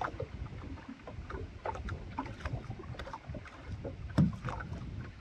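Water lapping and splashing against the hull of a redwood dugout canoe moving on a river, in quick irregular slaps over a steady low rumble. A louder dull knock comes about four seconds in.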